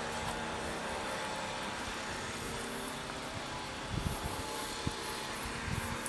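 Steady engine drone with a faint even hum, and a few low bumps about four seconds in and again near the end.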